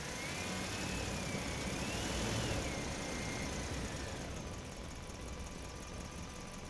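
Small electric motor whining as it runs, its pitch rising, dipping, rising again and falling away over the first four seconds, over a steady whirring noise.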